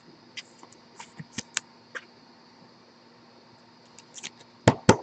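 Scattered light clicks and taps of trading cards and a metal printing plate being handled in plastic sleeves, with two sharper taps near the end.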